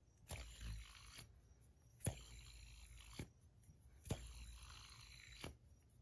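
Faint hand-spun titanium fidget spinner: three times, about two seconds apart, a sharp click starts about a second of quiet bearing whir, which ends in a lighter click.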